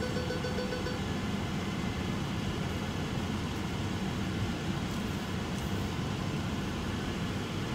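Steady low cabin noise from a car sitting still with its engine idling, heard from inside the car. A steady tone cuts off about a second in.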